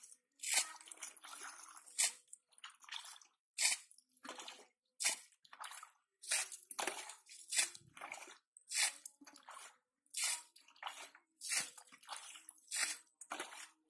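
Muddy water being bailed out of a shallow pool with a small plastic bucket: a string of scoops and splashes as the water is thrown out, about one a second.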